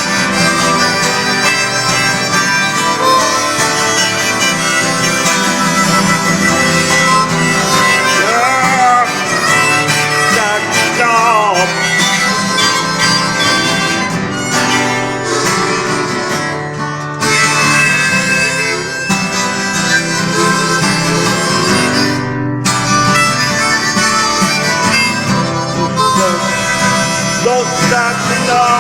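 Instrumental passage of a song, with no singing.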